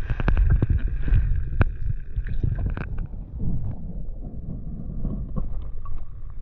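Muffled water noise on the camera microphone of a diver swimming underwater: a low rumble with a flurry of sharp clicks in the first three seconds, quieter after that.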